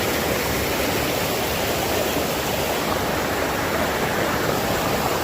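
Steady rush of flowing water, a constant even roar with no breaks.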